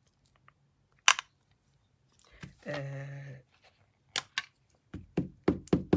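Clear acrylic stamp block and stamp clicking and tapping against the card while a stamp is lined up and set down: one sharp click about a second in, then a quick run of lighter taps near the end. A short hummed "mm" comes in between.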